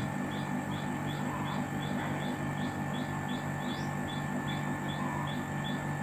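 Air conditioner outdoor unit running with a steady hum, while a bird repeats a short chirp about two to three times a second.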